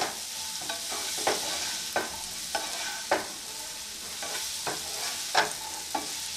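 Shredded cabbage, onion, capsicum and carrot sizzling in melted butter in a non-stick pan, stirred with a plastic slotted spatula that scrapes and knocks against the pan about once a second.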